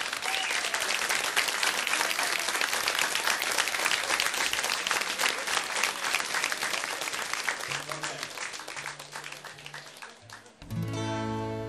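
Audience applauding, the clapping thinning out and dying away over about ten seconds. Near the end the band starts the song's instrumental introduction with steady held chords.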